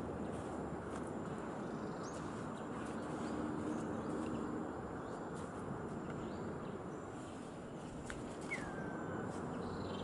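Outdoor ambience with a steady low rush, over which birds give a few faint chirps. About eight and a half seconds in, one bird gives a clear whistle that drops in pitch.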